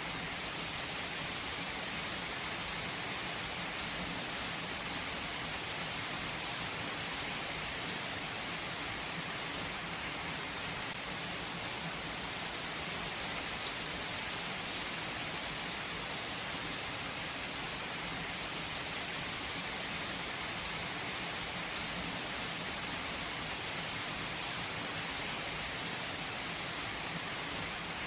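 Steady rain falling and pattering on surfaces, an even hiss with fine drop ticks.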